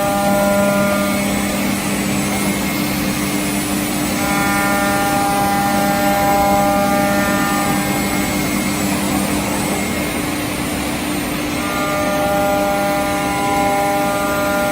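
CNC router running, its spindle giving a steady machine hum, with a higher whine that sets in for a few seconds at a time, three times, as it cuts.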